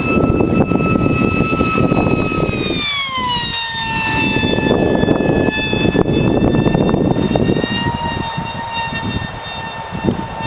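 High-pitched motor whine of a 36-inch radio-controlled model running at speed, dropping in pitch about three seconds in as it goes past, then holding steady over a rushing noise.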